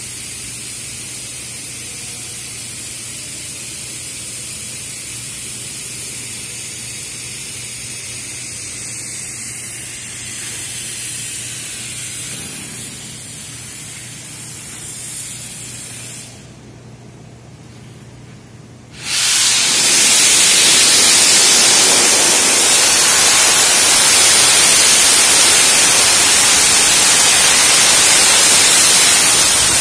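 Abrasive sandblasting nozzle: a steady, quieter hiss of air with a low hum, a brief drop, then about two-thirds of the way in the blast opens into a loud, steady rushing hiss as the abrasive stream hits the steel railing frames.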